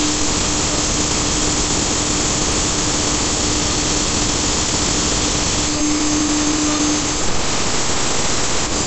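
CNC router spindle running with a steady whine while a conical bit cuts a square wooden post turning on the rotary axis, under a loud continuous machining noise.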